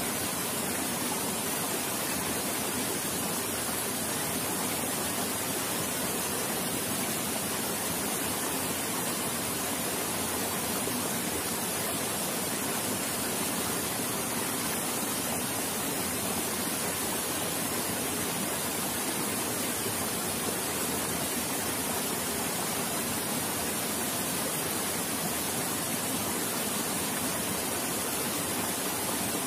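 Steady rushing of flowing water, with an even high hiss on top.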